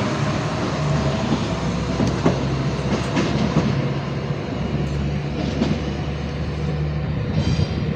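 Diesel railcar running with a steady engine hum, with a few clicks of wheels over rail joints.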